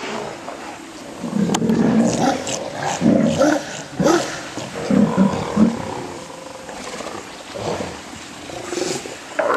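A colony of sea lions on shore rocks calling: overlapping low, hoarse roars and barks from several animals, coming every second or so.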